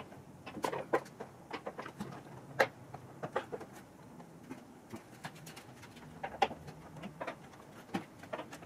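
Scattered light clicks and taps of hard plastic, several a second and uneven, as the plastic locking pins of a BMW F30's windscreen cowl panel are twisted loose with an Allen key and handled.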